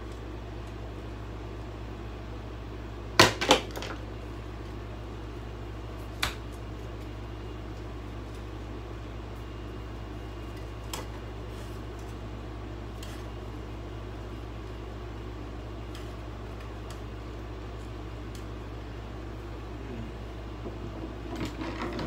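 A steady low machine hum, with two sharp knocks a moment apart about three seconds in and a lighter knock about six seconds in.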